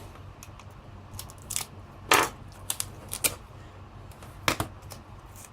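Light clicks and taps of small hard parts being handled while a tablet is taken apart, about six in all, with the loudest, a short clatter, about two seconds in.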